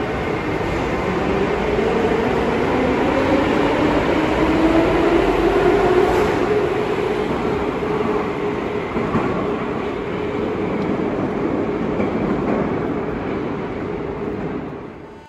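Metrovagonmash 81-717/714 metro train pulling out of an underground station as it accelerates. The traction motors' whine rises in pitch over the rumble of the wheels on the rails, and the sound slowly fades as the train enters the tunnel.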